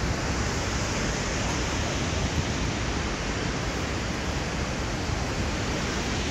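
Steady, even rush of a large waterfall, Chitrakoot Falls, a continuous wash of falling water.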